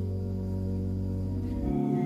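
Background music of slow, sustained chords, which changes to a new chord with higher notes near the end.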